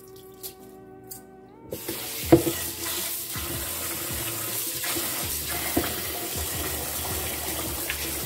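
Kitchen tap running into a rice cooker pot as a hand swishes the rice in the water, a steady rush that starts about two seconds in with a sharp knock of the pot against the sink. Before that, only faint steady background music tones.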